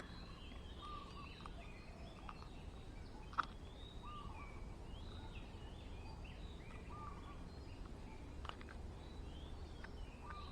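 Birds chirping: many short, quick calls over a low steady background, with a sharp click about three seconds in and another near the end.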